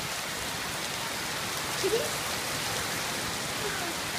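Heavy rain falling steadily: a dense, even hiss of drops on the ground and surfaces.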